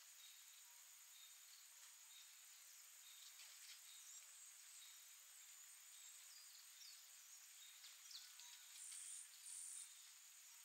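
Faint, high-pitched insect chirring, cricket-like, with two short louder chirps close together near the end.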